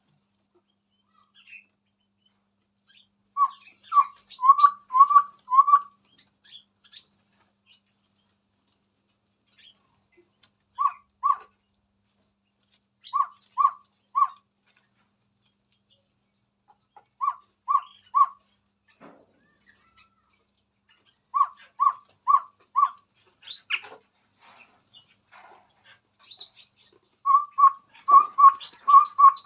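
Chestnut-rumped babbler singing: short, clear, hooting notes on one pitch, given in runs of two to six every few seconds. The runs grow longer near the end, with faint higher chirps between them.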